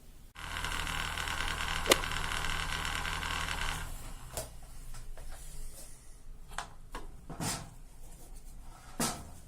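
A small electric machine runs steadily with a buzzing hum for about three and a half seconds, with a sharp click partway through, then cuts off. It is followed by scattered light clicks and knocks of handling.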